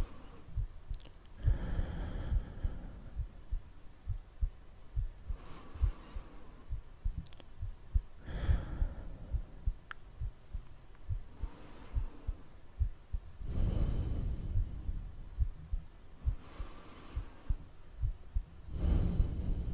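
Slow breathing, one breath every two to three seconds, over a steady run of soft low thumps like a heartbeat, as a sleep-themed soundscape.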